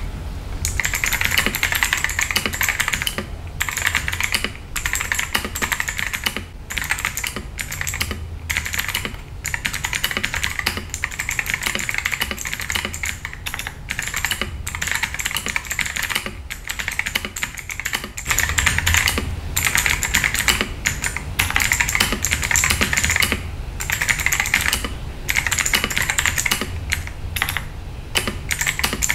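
Ajazz AK820 mechanical keyboard with clicky blue switches being typed on continuously: a fast, dense stream of sharp key clicks, broken by a few short pauses.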